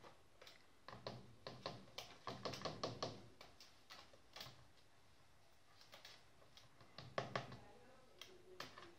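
A rainbow lorikeet knocking, a run of light irregular taps and clicks on its plastic cage, in a cluster over the first few seconds and again briefly near the end.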